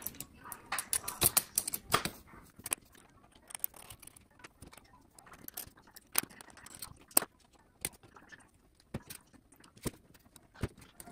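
Small metal parts clicking and clinking as gold-plated speaker binding posts and their metal washers are handled and fitted through a circuit board. The ticks are irregular, thick in the first couple of seconds and then scattered.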